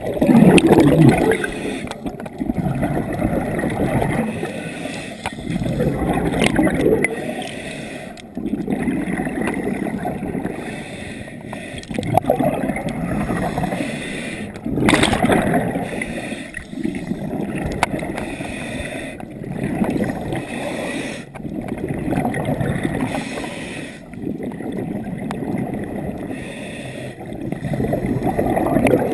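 Scuba regulator exhaust bubbles gurgling underwater, swelling and fading every two to three seconds with the diver's breathing.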